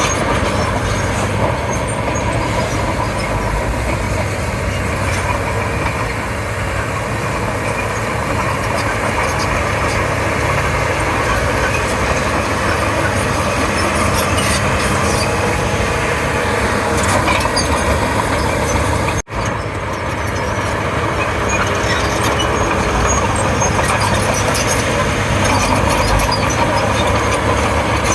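Komatsu D31P crawler bulldozer's diesel engine running steadily while working. The sound cuts out for an instant about two-thirds of the way through.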